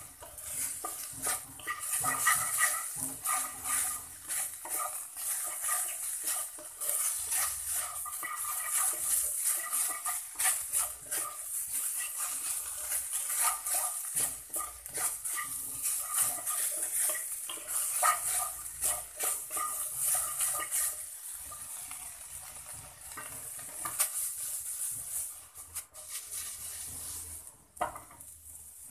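Wooden spatula scraping and stirring minced chicken breast in a nonstick frying pan, over a steady sizzle of the meat frying in a little oil as it cooks down dry. The stirring slows and stops near the end, leaving a fainter sizzle and one sharp click.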